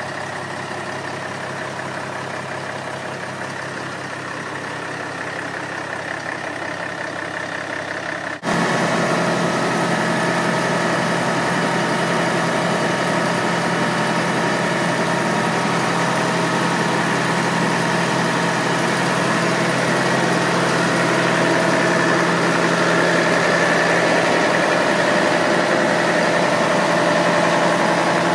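Fire engine's engine running steadily: a continuous hum with several held tones, stepping up louder about eight seconds in.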